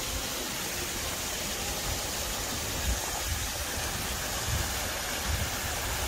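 Waterfall rushing in a steady hiss of falling water, with a few brief low thumps.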